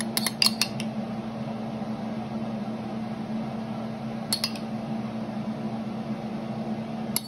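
Metal spoon clinking against a bowl while glaze is scraped out and spooned onto chicken: several quick clinks in the first half second and a couple more about four seconds in, over a steady low hum.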